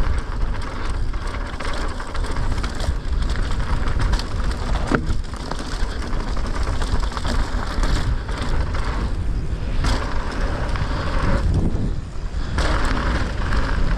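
Downhill mountain bike running fast over a dirt trail: tyres rasping over dirt, roots and loose stones while the bike chatters over the bumps, with sharp knocks about five and ten seconds in, over a steady wind rumble on the mounted action camera's microphone.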